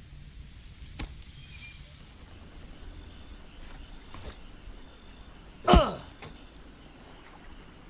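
A thrown-spear sound effect: one sharp hit with a brief tone falling in pitch, a little over two thirds of the way in. A faint click comes about a second in.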